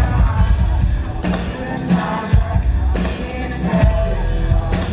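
Live pop-rock band playing: a male lead vocalist sings into a handheld microphone over drums and the band, with heavy low drum hits.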